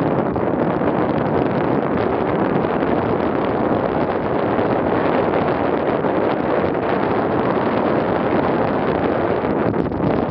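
Steady rushing wind noise on the microphone of a bicycle's handlebar-mounted camera while riding along an asphalt road.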